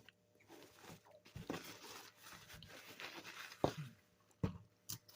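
Faint eating noises: soft chewing and handling sounds with a few sharp clicks.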